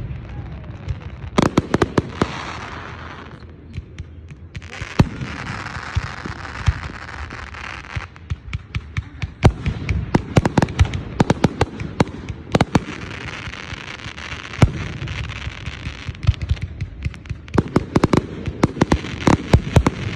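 Aerial fireworks bursting in rapid, irregular volleys of sharp bangs, with stretches of crackling hiss between the reports.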